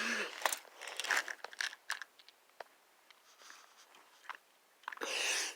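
Scattered clicks and short rustles of small toys being handled, going quiet for a few seconds in the middle before a brief burst of rustling near the end.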